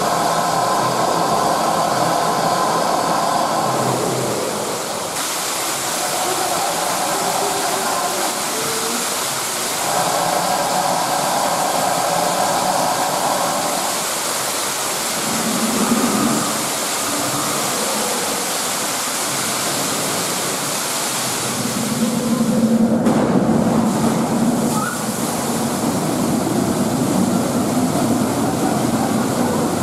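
Steady rushing noise of an indoor exhibit waterfall, growing louder about three-quarters of the way through.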